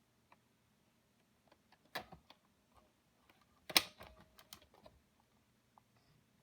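Irregular clicks and ticks from a portable Sony DVD player's disc drive mechanism as it tries to load a disc. The loudest clatter comes about two seconds in and again near four seconds, over a faint steady low hum.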